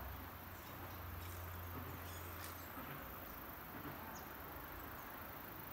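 Outdoor ambience: a steady hiss with scattered short, high chirps. A low hum stops about two and a half seconds in.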